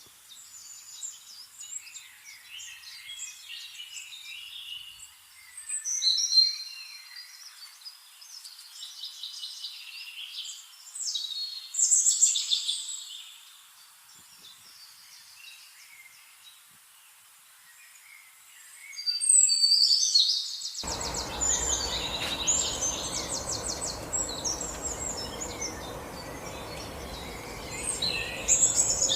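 Birds chirping and singing in repeated high, quick phrases, with a few louder bursts. About two-thirds of the way through, a steady low background noise comes in beneath them.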